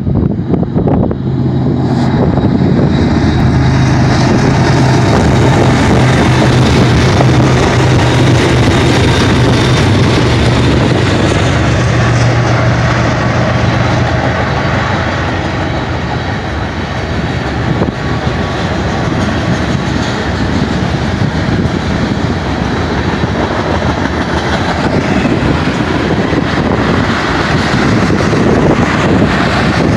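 BNSF freight train passing close by, led by GE ES44DC diesel locomotives whose engines drone steadily for the first half. After the locomotives go by, about halfway through, the tank cars and hoppers take over with a continuous rolling rumble of steel wheels on the rails.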